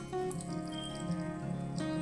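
Background instrumental music: a tune of plucked-string, guitar-like notes.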